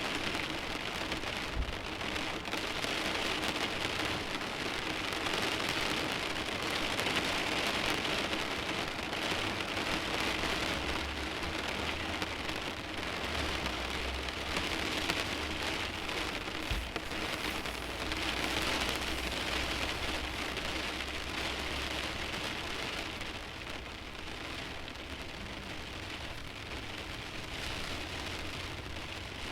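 Steady rain falling on the windshield of a parked car, with no engine running. The rain swells and eases slightly and is a little softer in the last few seconds.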